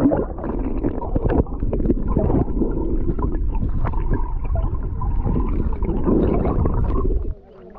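Water noise heard through a camera microphone held underwater in a muddy pond: a dense, muffled rumble with bubbling and many small knocks. It drops away suddenly near the end, as the camera comes out of the water.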